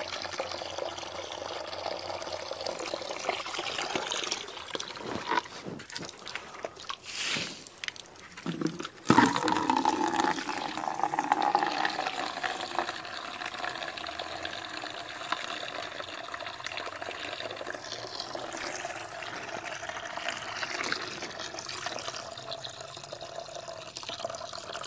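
A stream of water from a garden hose pouring into a plastic bucket, filling it steadily. It grows suddenly louder about nine seconds in.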